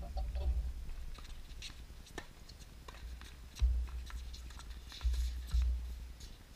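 Tennis rally on a hard court: rackets striking the ball give several sharp pops. A gusty low rumble of wind on the microphone swells in bursts and is the loudest sound, strongest near the start and again in the second half.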